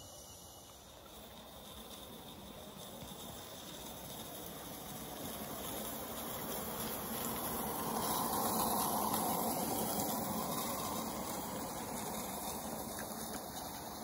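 Small live-steam model locomotive running past close by, its steam exhaust hissing, growing louder to a peak about eight seconds in and then easing off a little.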